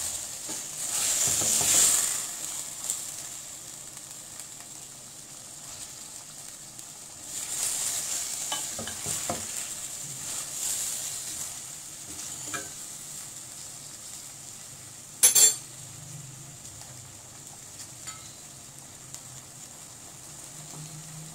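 Potatoes and fenugreek leaves frying in oil in a stainless steel pot, a steady sizzle, with a wooden spatula stirring and scraping through them in two spells, at the start and around the middle. A single sharp knock comes about two-thirds of the way through.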